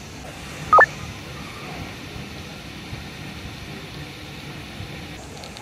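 A short two-note electronic beep, the second note higher, about a second in, over a steady hum of shop background noise.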